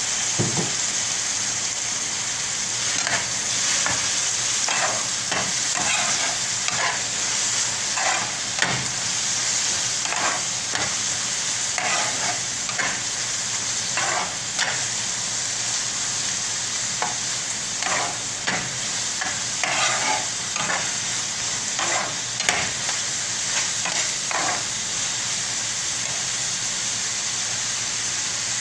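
Onions, green chillies and freshly added tomatoes sizzling in hot oil in a pan, with a spatula stirring and scraping against the pan in irregular strokes.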